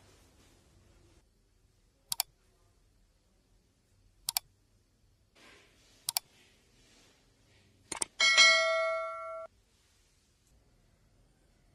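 Sound effects of a like-share-subscribe button animation: three sharp double mouse clicks about two seconds apart, then a click and a bright bell ding that rings for over a second and cuts off suddenly.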